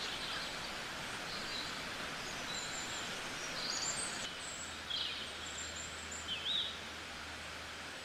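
Nature ambience: a steady hiss of outdoor background with scattered short bird chirps, a small cluster of them near the middle and another near the end.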